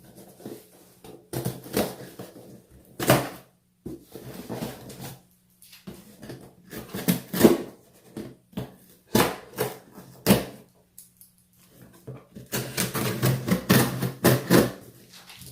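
A cardboard shipping box being opened and handled on a table: irregular knocks, scrapes and rustles, with a denser run of rustling and tearing near the end.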